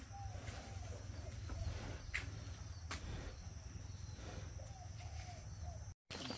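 Rural outdoor ambience: a steady high insect buzz with a few soft bird calls over a low rumble, and a couple of light clicks.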